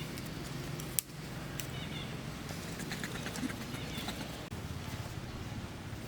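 Short, high chirping animal calls in small clusters over a steady low background noise, with a sharp click about a second in.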